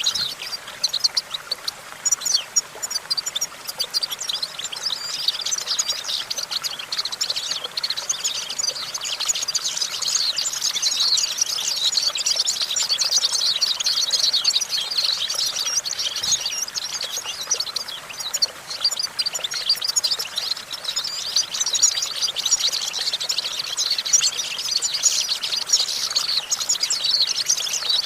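European goldfinch singing: a continuous, rapid twittering song of fast high chirps and trills without a break.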